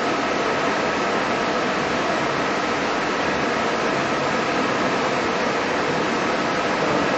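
KUKA industrial robot arm running as it moves slowly, a steady whirring hum with a faint high tone over it.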